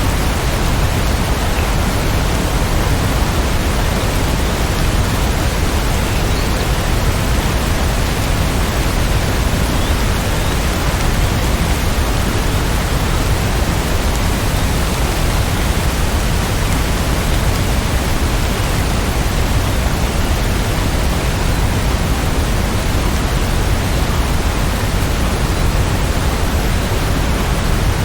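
Steady rain, an even hiss with a strong low rumble underneath. There are no separate thunder claps or changes.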